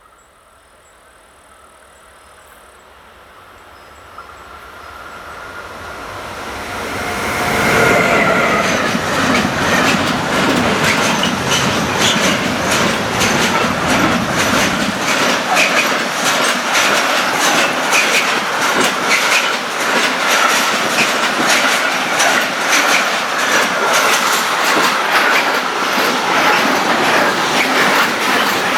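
Electric train approaching and passing at speed. Its sound builds over the first eight seconds, with a whining tone from the locomotive that drops in pitch as it goes by. A long run of loud wheel clatter over the rail joints follows and is still going at the end.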